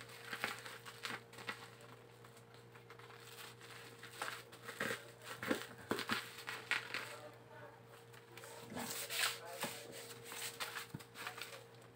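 Plastic wrapping of a parcel crinkling and rustling in short, irregular bursts as it is turned over and handled, over a steady low hum.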